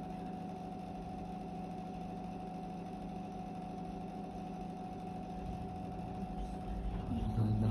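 Steady electrical hum from an appliance in a small room, with a low rumble swelling near the end.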